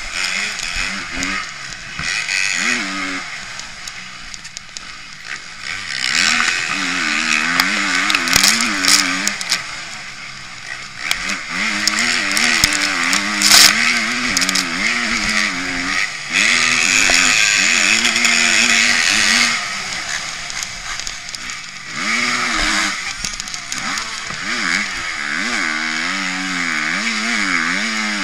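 Motocross bike engine heard through a camera mounted on the bike itself, revving hard and easing off again and again as the rider accelerates out of corners and shuts off for the next ones, with wind noise over it. There is a sharp crack partway through.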